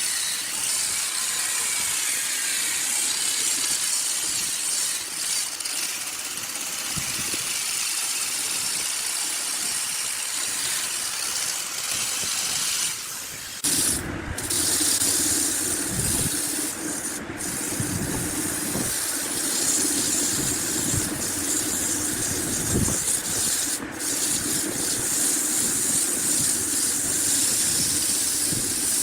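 Woodworking power tool running steadily with a hissing, whirring noise. About 14 seconds in it changes abruptly to a rougher, fuller noise, with a few brief sudden breaks.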